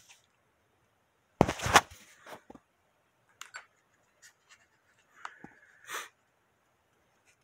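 Handling noise from a handheld phone camera being moved: a loud rubbing bump about a second and a half in, then scattered light clicks and a brief squeak near the end.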